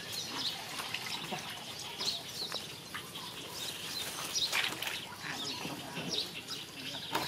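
Small birds chirping over outdoor background noise, with a few light splashes as a plastic basket is dipped into a pond.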